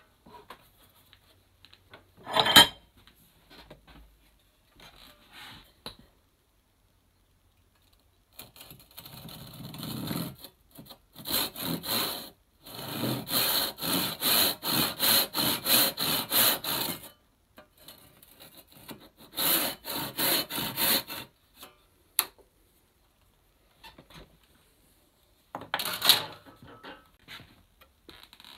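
Handsaw cutting through a wooden blank held in a vise: runs of quick back-and-forth sawing strokes, about three a second, with a pause between two runs. A sharp knock comes a couple of seconds in, and another near the end.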